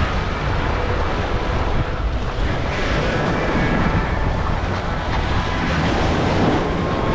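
Sea waves breaking and washing over granite jetty rocks, a steady surf noise, with wind buffeting the microphone.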